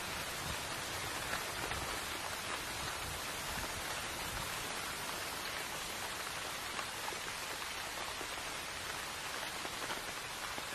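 Rain falling steadily: an even hiss of many drops, with scattered single drop ticks.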